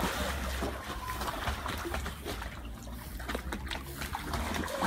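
A dog paddling in a swimming pool, its strokes churning the water into small, irregular splashes.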